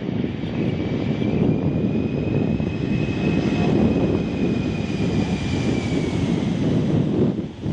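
C-5M Super Galaxy's turbofan jet engines running: a heavy, steady rumble with a high whine that rises a little and then fades out over several seconds. The sound dips briefly near the end.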